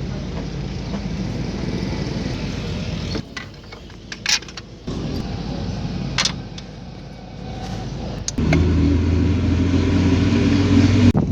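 A car engine running, broken by several abrupt cuts, with a few sharp clicks in a quieter stretch a few seconds in. Near the end it comes back louder with a deep hum, then stops suddenly.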